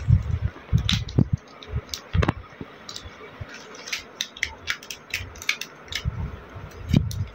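Plastic makeup items (pencils, lipstick tubes, a false-eyelash case) clicking and rattling against each other and a clear plastic storage box as they are picked through by hand: a string of small sharp clicks. Low rumbling handling noise comes at the start and again near the end.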